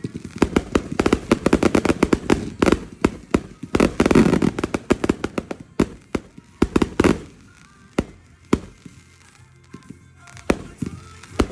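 Fireworks going off in rapid strings of sharp pops and cracks, loudest about four seconds in. They thin to a few single pops after about seven seconds, then pick up again near the end.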